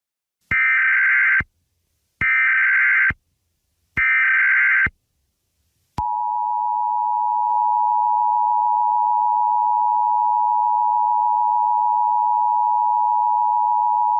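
Emergency Alert System tones: three short bursts of SAME header data, each a little under a second and evenly spaced, then the steady two-tone EAS attention signal, held for about eight seconds.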